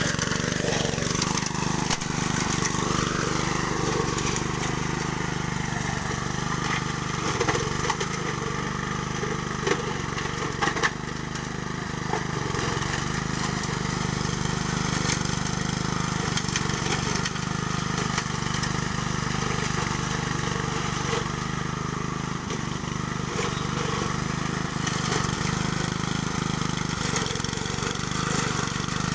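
Honda self-propelled walk-behind lawn mower's small petrol engine running steadily, with a few light clicks about halfway through.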